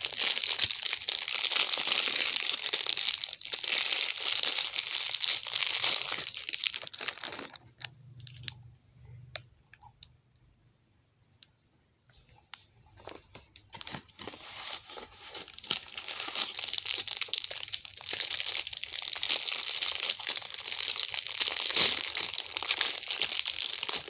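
Clear plastic wrapper crinkling and tearing as a squishy stress ball is unwrapped by hand. It goes nearly quiet for several seconds in the middle, then crinkling starts again as a second plastic wrapper is torn open.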